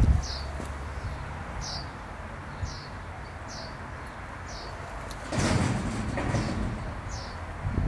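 A bird outside repeats a short, high, falling chirp about once a second over a low steady rumble. About five and a half seconds in there is a loud scraping rustle lasting about a second.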